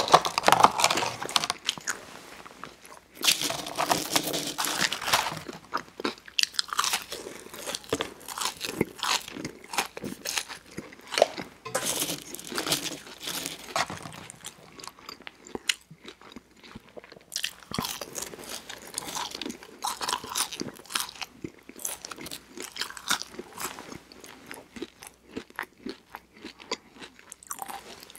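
A person chewing McDonald's french fries, with many sharp crunches coming in irregular clusters.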